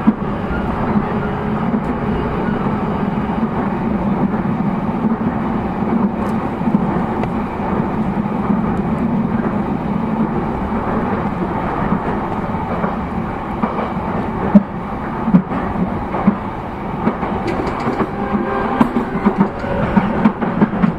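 Running noise of a JR East E233-0 series electric commuter train heard inside the car: a steady drone of wheels on rail and traction equipment, with a few sharp knocks in the last third.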